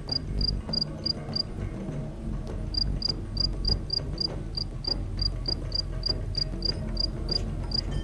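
A cricket chirping in short, evenly spaced pulses at one high pitch, about three to four a second. It pauses briefly about a second and a half in and starts again near three seconds.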